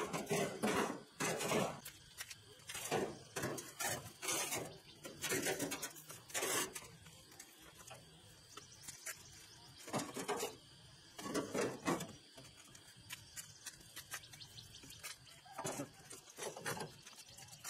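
Metal engine parts clanking and scraping against a sheet-metal handcart as they are loaded and shifted, in irregular bursts with short pauses between.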